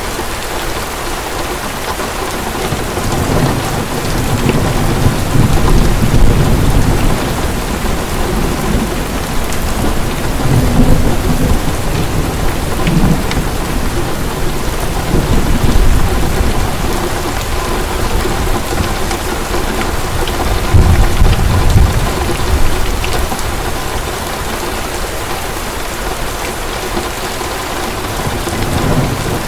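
Heavy rain pouring steadily, with low rolls of thunder rumbling up and fading away several times.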